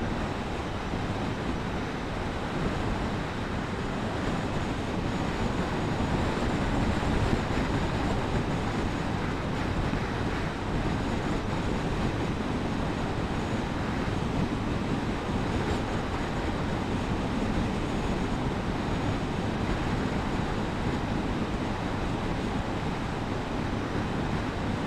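Suzuki GSF1250 Bandit motorcycle on the move: a steady rush of wind and road noise with the engine underneath, holding an even level throughout.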